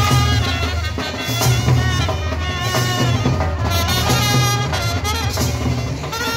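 Live street band playing traditional folk music: a reedy wind-instrument melody over steady drumming.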